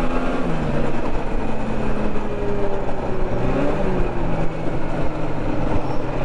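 Yamaha Viking snowmobile engine running under way, its pitch drifting slowly up and down, over a steady rushing noise.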